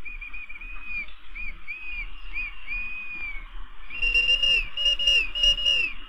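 Shrill, piercing railway shunting whistles in a steam-era yard: a run of short whistle notes, each bending in pitch, then three louder, fuller blasts near the end, over a steady background hiss and low rumble.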